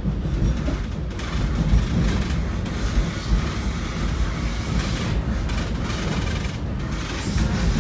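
Metra commuter train running on the rails: a steady deep rumble with the rattle and noise of the wheels and cars. The higher noise drops away briefly a few times.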